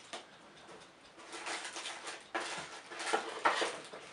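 Plastic bags and cardboard rustling and crinkling in irregular bursts as hands dig accessories out of a camera box, starting about a second in.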